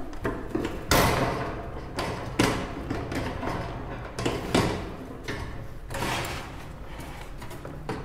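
Light knocks and rattles of a wire birdcage and its wooden nest box being handled: a few separate sharp taps, the loudest about a second in.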